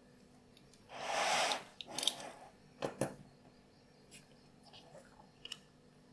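Handling noise as a paper template and a freshly cut leather piece are moved and separated on a glass cutting board: a short rasping rustle, a second briefer one, then two sharp clicks and a few faint taps.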